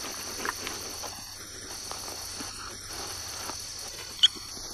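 Night insect chorus, a steady high chirring, with faint rustling of dry leaf litter as a snake and rats move over the ground. One short, sharp sound stands out about four seconds in.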